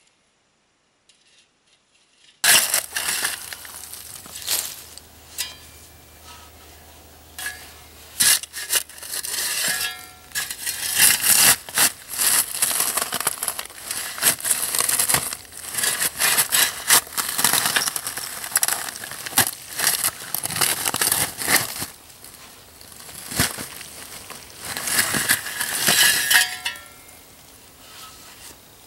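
Shovel scraping and scooping through a pit of charcoal, the charcoal pieces clinking and crunching in repeated irregular bursts. It starts about two seconds in, after near silence.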